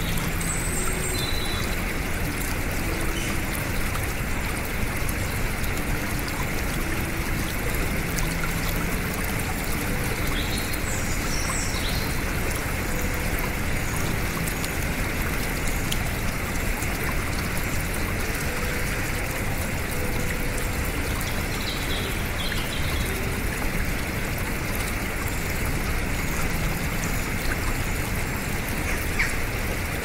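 Shallow rocky stream running over small cascades: a steady, even rush of water. Faint high bird chirps come through a few times.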